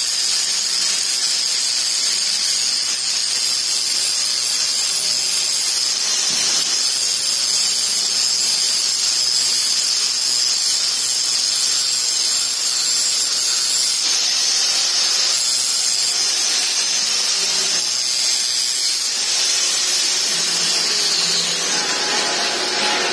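Angle grinder grinding a steel weld test plate: a steady high whine with the hiss of the disc on the metal.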